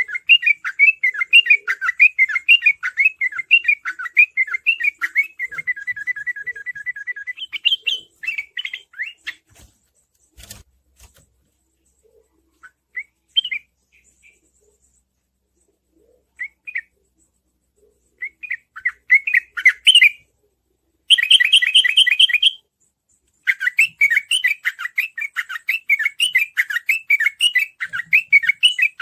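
Sooty-headed bulbul (trucukan) singing a rapid, chattering 'ropel' song in bursts, with a fast even trill about six seconds in and again past the twenty-second mark. A quieter middle stretch holds only scattered single notes.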